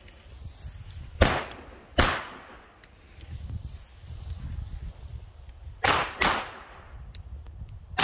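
Small Geisha Colpo Thunder firecrackers in cardboard tubes, 0.8 g each, going off one at a time: four sharp bangs, a pair about a second in and another pair near six seconds, each with a short echo.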